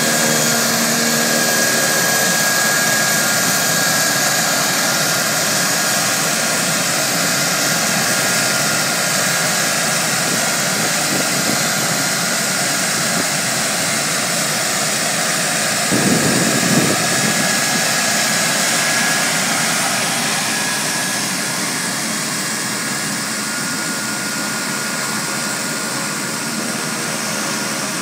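Beechcraft King Air 200's twin Pratt & Whitney PT6A turboprops running on the ground, a steady turbine whine over a loud hiss. A brief low rumble comes about halfway through, and the sound grows a little quieter in the last third.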